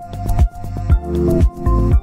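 Background electronic music with a deep kick-drum beat about twice a second under sustained synth tones.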